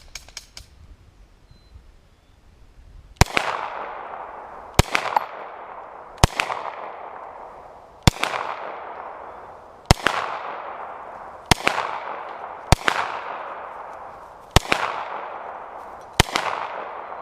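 Gunshots fired one at a time from a semi-automatic gun: nine evenly paced shots about one and a half seconds apart, starting about three seconds in, each ringing out in a long echo that fades before the next.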